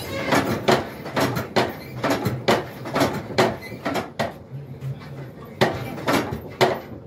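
Hand-pumped blacksmith's forge bellows worked by a wooden lever pole, its wooden frame and linkage creaking and knocking two or three times a second as air is driven into the coal fire.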